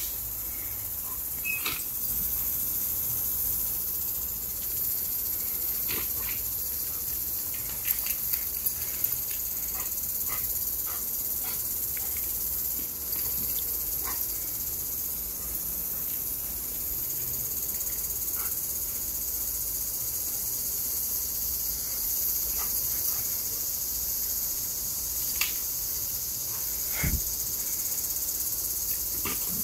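Steady high-pitched insect chorus, with scattered faint clicks and a single thump near the end.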